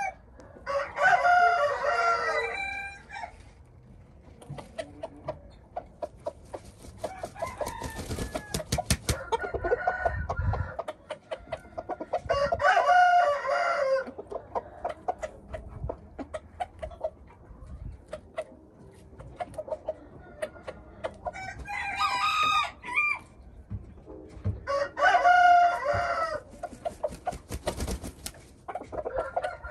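Thai Asil bantam roosters crowing again and again, about five long crows a few seconds apart, with short clucks in between.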